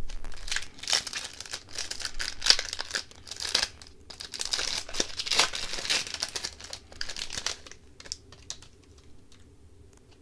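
Crinkling and tearing of a hockey card pack's wrapper as it is torn open, dense crackling that thins to a few scattered crackles over the last couple of seconds.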